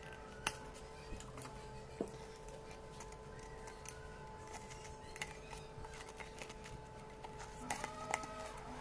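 Steel wires being handled and pushed through a plastic bowl: scattered sharp clicks and taps, a few of them louder, over a steady low hum.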